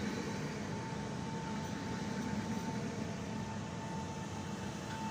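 Electric multiple unit moving slowly alongside the platform: a steady hum and whine from its electric drive over a rumble of running gear.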